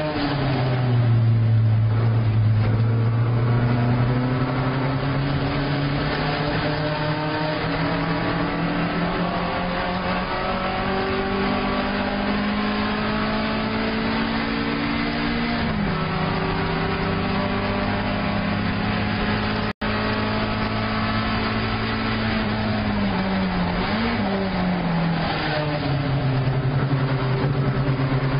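Alfa Romeo 1750 GTV's twin-cam inline-four engine racing on track, heard from inside the cabin. The note drops at the start, climbs slowly under load, drops sharply at gear changes about 16 and 24 seconds in, then holds steadier. The sound cuts out for an instant about 20 seconds in.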